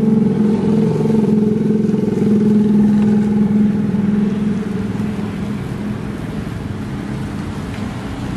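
A motor engine running steadily close by, a loud low hum that eases off about halfway through.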